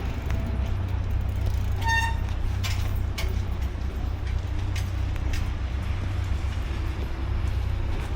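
Railway station ambience: a steady low rumble, with one short electronic beep about two seconds in and a few faint clicks.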